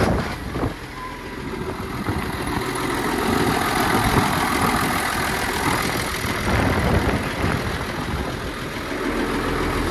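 Ford TW-35 tractor's six-cylinder turbo diesel idling steadily, with wind on the microphone.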